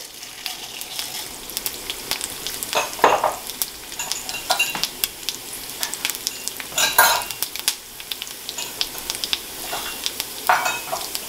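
Fennel seeds, cumin seeds and black peppercorns sizzling in hot oil in a frying pan, crackling steadily with a few louder crackles.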